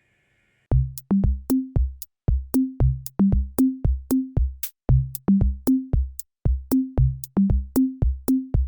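Electronic outro music with a steady beat: a repeating pattern of low drum thumps, short bass notes and sharp snappy hits, starting just under a second in.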